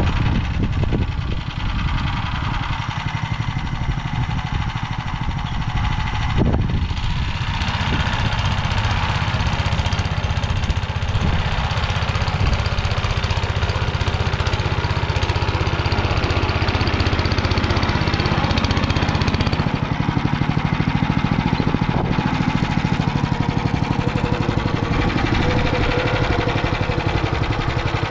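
Motor Sich two-wheel walk-behind tractor's engine running steadily under load as its rotary tiller works the soil, coming closer. A single brief knock about six seconds in, and the engine note shifts slightly about two-thirds of the way through.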